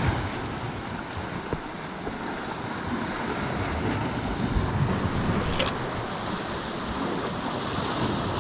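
Steady rushing noise of wind on the microphone and the sea washing on the shore, with a couple of faint clicks.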